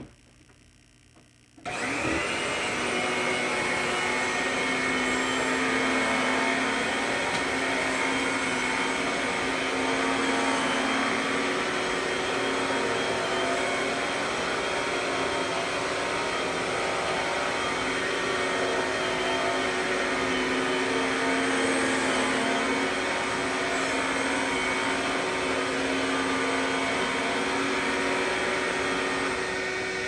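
1983 Montgomery Ward Power II canister vacuum, a Eureka-built canister, switched on about two seconds in and then running steadily with a high whine. Its motorized Eureka power nozzle is being pushed back and forth over carpet.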